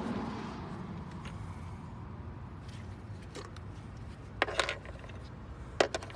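A few light metallic clinks of hand tools being handled: a short cluster about four and a half seconds in and a sharper one near the end, over low steady background noise.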